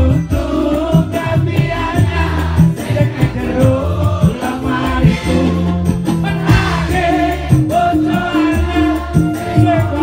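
Live band music played through a PA, with a man singing into a microphone and the crowd singing along.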